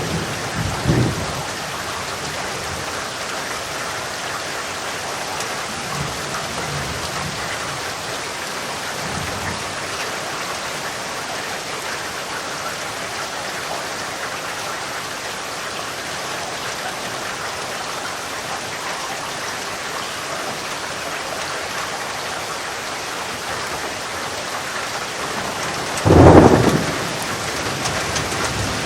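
Steady rain falling in a thunderstorm, with a low rumble of thunder about a second in, fainter rumbles in the first third, and a loud clap of thunder near the end.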